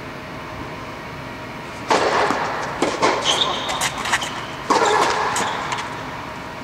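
Tennis rally on a clay court: two loud, sudden racket-and-ball hits about three seconds apart, each followed by a ringing echo, with sharper clicks of the ball and shoes between them, over a steady hum.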